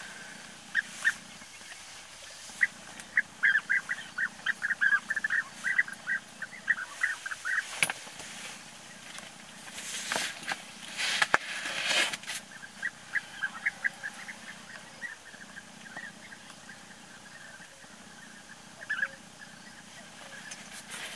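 European bee-eaters calling: many short calls in quick runs, thickest in the first third and again through the second half. About halfway, a couple of seconds of rustling and shuffling, with a few sharp clicks.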